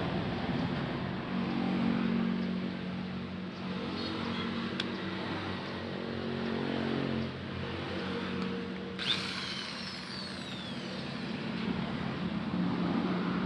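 A power tool's motor running steadily, with a sharp high squeal starting suddenly about nine seconds in and falling in pitch.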